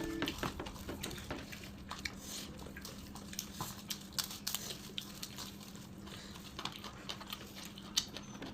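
Close-up eating sounds: many small, irregular clicks and smacks of a person eating.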